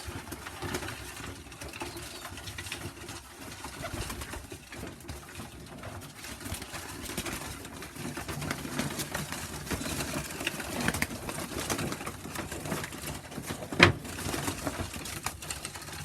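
Pigeons cooing in a loft, with scattered light clicks and one sharp knock near the end.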